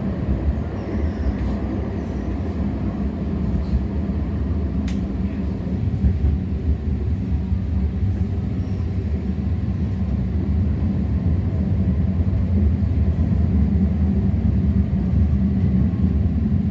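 Interior of an O-Train Confederation Line light rail car (Alstom Citadis Spirit) in motion: a steady low rumble with a steady hum running under it, and a single sharp click about five seconds in.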